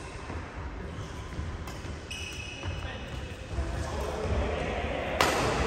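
Badminton rackets striking a shuttlecock during a doubles rally: a few sharp, echoing pops, the loudest about five seconds in, over the low hum of a large hall.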